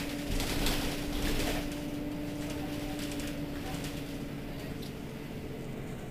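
Mercedes-Benz Citaro city bus standing with its engine idling: a steady hum over a low rumble, the hum fading away near the end. Some brief rustling noise in the first second or so.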